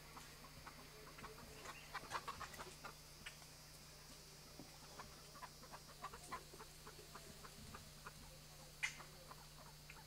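Rufous-necked wood-rail on the forest floor: faint, irregular soft clicks and rustles, thickest about two seconds in, with one sharper tick near the end.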